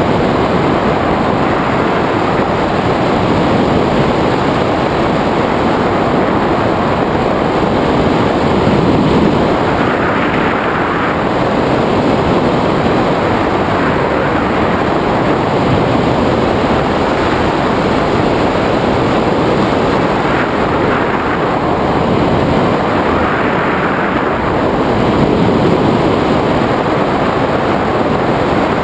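Airflow rushing steadily over a camera microphone mounted on a hang glider's wing during flight. The noise swells slightly a few times.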